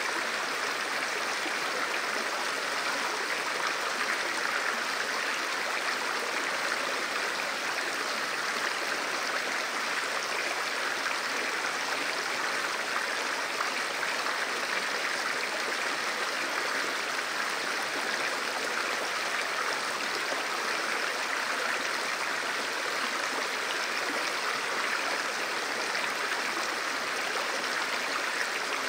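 Fast mountain river rushing over rocks and rapids in a walled channel: a steady, even rush of water.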